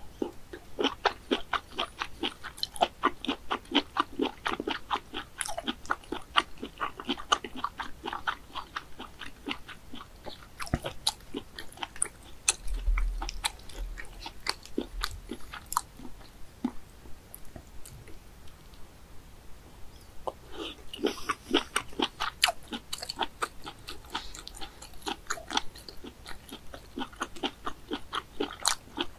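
Close-miked chewing of boiled snail meat: rapid chews and bites in two long runs, with a quieter spell in the middle.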